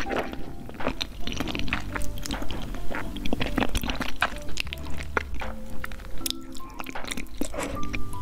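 Background music over close-miked mouth sounds of eating cheesy baked pasta: wet chewing with many small sharp clicks and smacks.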